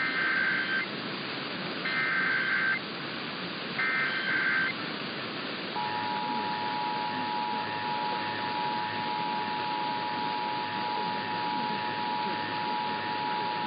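Emergency Alert System SAME header: three short bursts of warbling digital data tones about two seconds apart, over a steady hiss of radio static. Then comes the long, steady two-tone attention signal, starting about six seconds in. It opens an EAS activation for a tornado warning.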